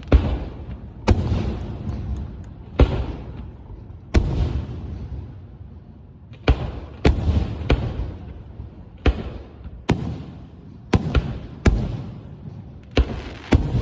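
Aerial firework shells bursting one after another: about a dozen sharp booms at irregular spacing, some in quick pairs, each followed by a low rumbling echo that dies away.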